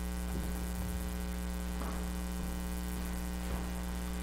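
Steady electrical mains hum in the microphone and sound system, with a few faint, soft knocks scattered through it.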